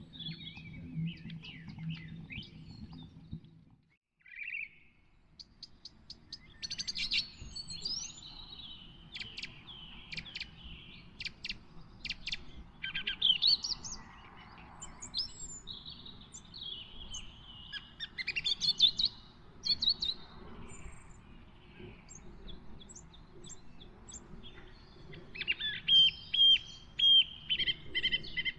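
Songbirds chirping and singing, with many short calls and trills coming from several birds. A low steady hum in the first few seconds cuts off suddenly about four seconds in.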